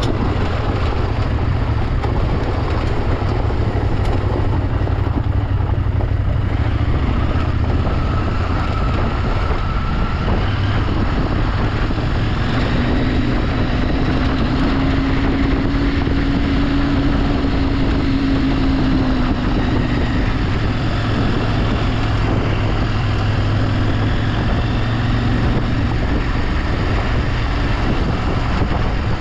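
A vehicle engine running steadily on the move, with wind noise on the microphone. A faint tone rises and falls about halfway through.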